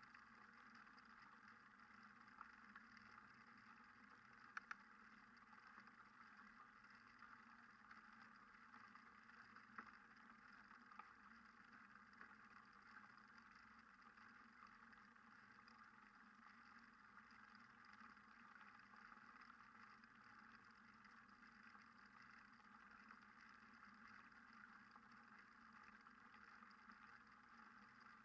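Near silence: a faint, steady hiss with a few tiny clicks.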